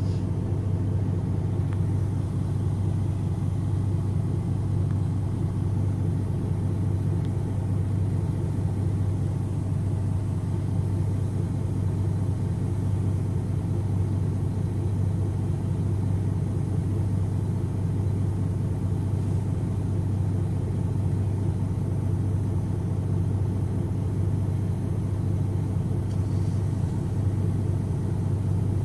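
MAN NG313 articulated bus idling at a standstill, its horizontal 12-litre MAN D2866 six-cylinder turbo diesel giving a steady deep drone.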